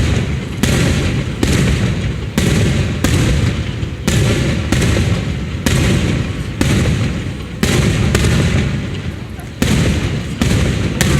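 Aerial firework shells bursting in quick succession, a dozen or so loud bangs about one to two a second, each followed by a low rumbling echo that runs into the next.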